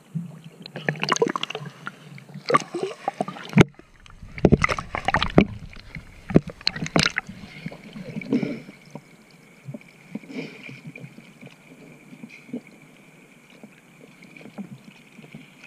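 Sea water splashing and sloshing against a camera held at the surface by a swimmer, in irregular loud surges with a sharp knock near the start; it settles to quieter lapping in the second half, with a faint steady high tone running under it.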